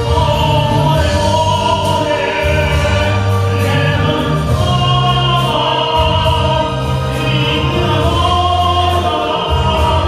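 Live amplified music with a singer: long held sung notes over a bass line and a steady beat, heard through the room's PA.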